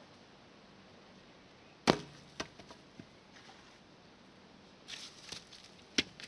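Wooden poles are set down on the grass one after another and knock against a log lying there. There is a sharp wooden knock about two seconds in with a lighter one just after, a short clatter of wood near the end, and one more sharp knock.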